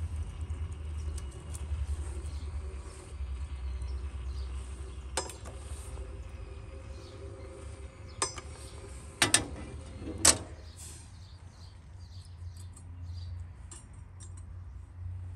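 Iron tongs clinking against the metal top of a samovar as a burning coal is dropped into its chimney: four sharp clinks in the second half, the last the loudest, over a steady low rumble.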